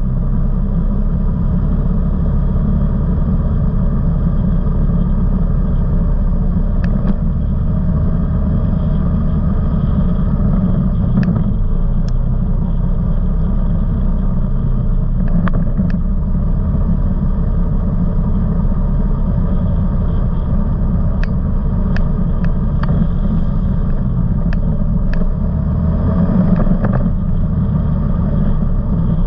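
Off-road vehicle engine running steadily under way on a trail, a loud low rumble heard close up, with scattered sharp clicks and rattles and a slight swell near the end.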